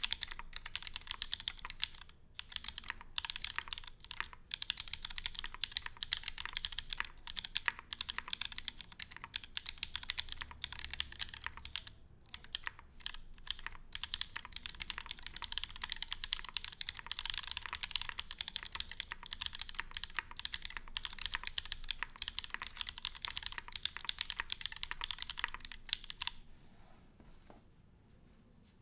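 Fast, continuous typing on a mechanical keyboard with lubed and filmed vintage Cherry MX Black linear switches, a POM plate and GMK keycaps: a dense stream of keystroke clacks that stops near the end.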